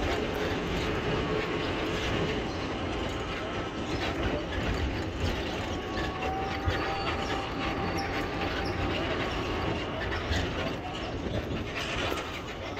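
Road noise from inside a moving vehicle: a steady rumble with continual small rattles and clicks.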